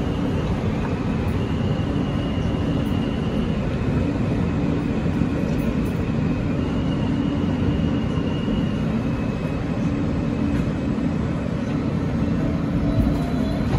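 Inside an R160 New York City subway car running into a station: a steady rumble of wheels and running gear, with faint high tones coming and going twice.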